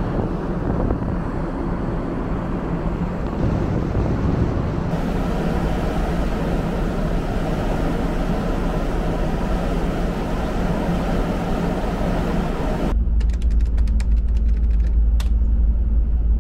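Steady rushing of wind and the ferry's running noise on an open deck of a ship under way. Near the end it cuts abruptly to a deep, steady low rumble with a few faint clicks.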